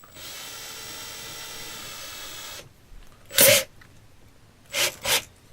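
Power drill running with no load for about two and a half seconds, a steady whine that stops suddenly. Then one loud short burst of noise, and two quicker ones near the end.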